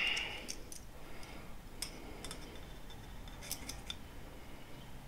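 Steel vernier caliper being handled and its sliding jaw closed onto a knife blade to measure its thickness: a short metallic scrape at the start, then a few light scattered metal clicks and taps.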